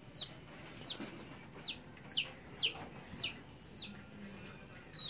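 A baby chick peeping repeatedly, short high notes that each fall in pitch, about two a second.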